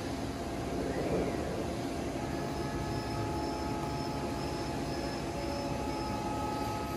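Steady background noise of a workshop: an even hiss and hum with a few faint steady tones, and no distinct tool clicks standing out.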